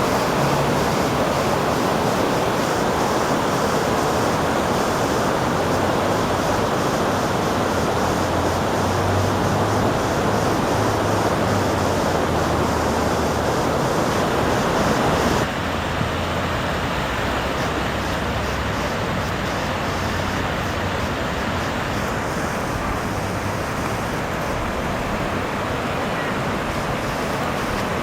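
Rushing floodwater, a steady loud wash of noise, dropping to a lower level about halfway through.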